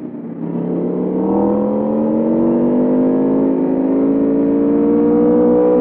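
The V4 engine of a 2021 Aprilia RSV4 Factory accelerating in one long pull, recorded onboard. Its pitch climbs steadily from about half a second in and grows louder as the revs rise.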